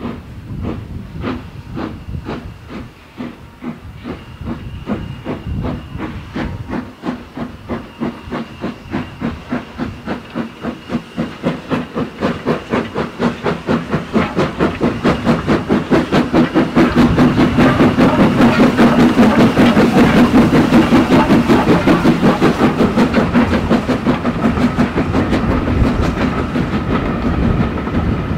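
Hunslet Austerity 0-6-0 saddle tank No. 198 steam locomotive starting away with its train. Its exhaust beats begin well spaced and quicken steadily as it gathers speed, loudest as it passes close, with the carriages' wheels clattering on the rails behind.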